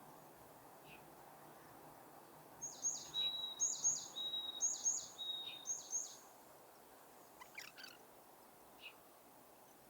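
A small songbird singing a quick phrase of high down-sweeping notes joined by short steady whistles, repeated about four times, then a few brief chirps, over faint steady outdoor background noise.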